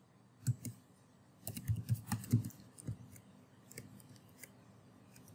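Quiet computer keyboard typing: irregular runs of key clicks, busiest in the first three seconds and then thinning to a few faint taps.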